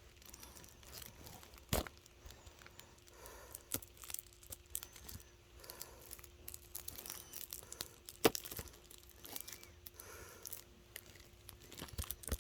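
Plastic shrink wrap being picked at and peeled off a Blu-ray case: faint, intermittent crinkling and tearing, with a few sharp clicks, one about two seconds in and another about eight seconds in.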